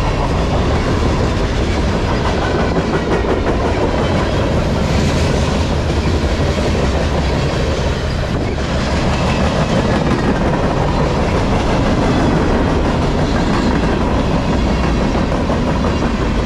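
Freight cars of a long manifest freight train rolling past at close range: boxcars, covered hoppers and tank cars, with a steady, loud rumble and clatter of steel wheels on the rails.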